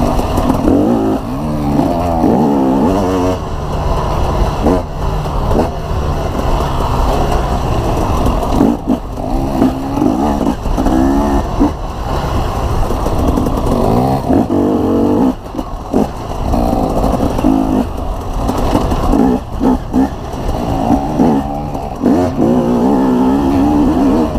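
Dirt bike engine heard from the bike itself, revving up and down as it rides a rough trail, with short throttle-offs about two thirds of the way through, over steady wind rush on the microphone.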